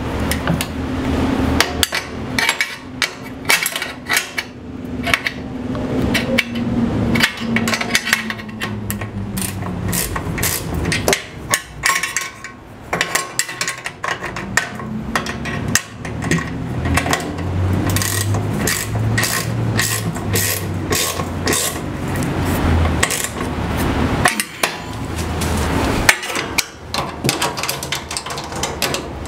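Many metallic clicks and knocks of hand tools working the mounting bolts of an Incra fence rail on a table saw, tightening the rail after it has been dropped into position.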